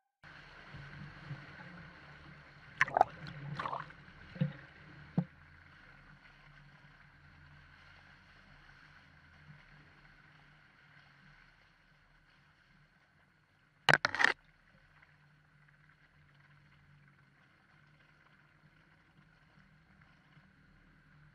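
Vehicle engine running faintly and steadily, with several sharp knocks about three to five seconds in and a loud double clunk about fourteen seconds in.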